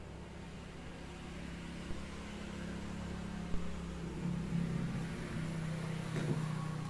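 A steady low mechanical hum, with a couple of light clicks as PVC pipe fittings are handled and pushed together.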